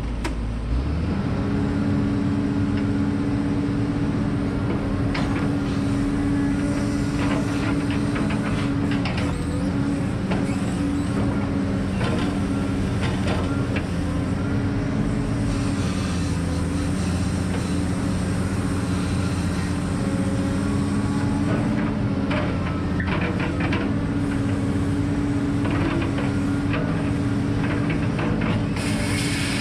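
Diesel engine of a hydraulic log loader running at raised revs under hydraulic load as the boom and grapple swing a log, with occasional clunks. Near the end a high hiss begins as the saw in the head starts cutting.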